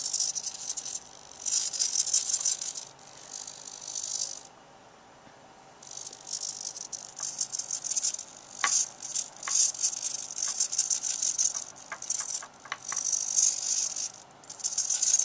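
Cheap hobby servos in a robot arm buzzing and chattering as they move, in repeated bursts of about a second with a short pause about five seconds in. A few sharp clicks come in the second half.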